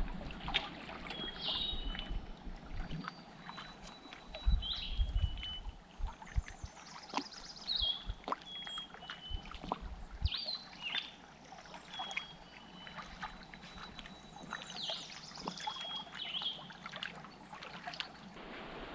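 A canoe being paddled: water swishing and trickling with light knocks, while a bird sings short high chirping phrases every few seconds.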